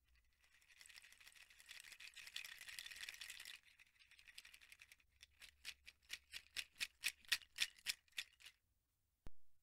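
A homemade bottle-cap rattle, plastic caps on elastic cords, clattering: first shaken continuously for about three seconds, then, after a short pause, in a run of separate shakes about four or five a second. A single sharp click comes near the end.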